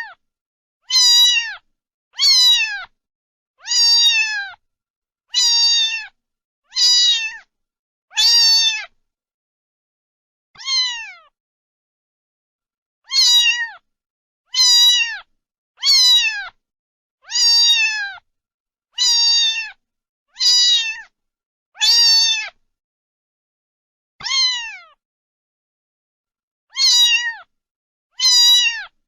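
A domestic cat meowing over and over, about one meow every second and a half, each a short high meow that falls in pitch at the end, with a few longer pauses between them.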